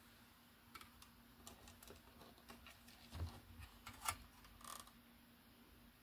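Faint, scattered clicks and taps as a Carrier air conditioner circuit board is handled and turned over by hand, with a soft knock about three seconds in.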